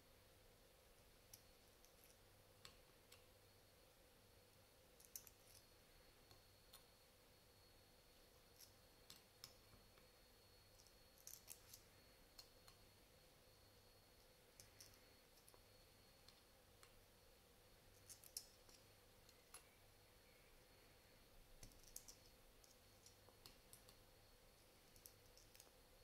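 Faint, irregular small clicks of brass lock discs and spacer washers being slid one by one off an Abloy Exec disc-detainer core and set down in a machined aluminium tray.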